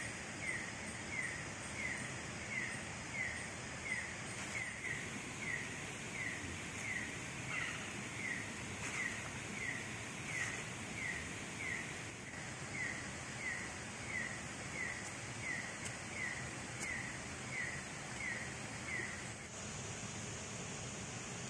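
Night jungle ambience: an animal repeats a short, falling chirp about twice a second, steadily, over a constant high-pitched drone. The chirping stops near the end.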